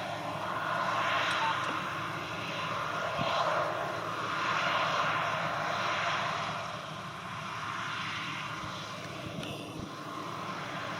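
Claas Lexion 540 C combine harvester running while harvesting barley: a steady machine drone that swells and fades gently every second or two.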